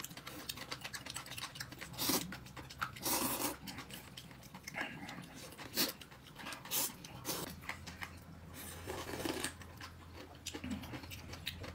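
A person eating a meal: chewing, with scattered short clicks and brief noisy bursts.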